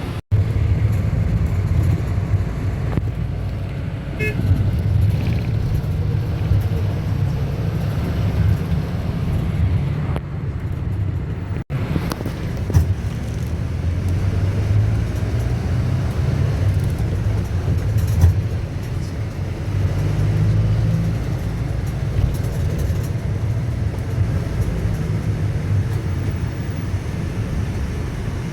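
Motor vehicle driving on a road, a steady low engine and road rumble, with a brief toot about four seconds in.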